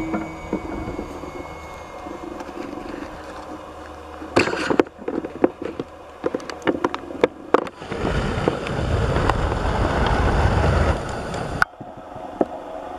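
Twin electric motors and propellers of a hand-launched RC plane whining steadily and fading as it flies away. After that comes rushing noise with scattered knocks and thumps, which stops abruptly near the end.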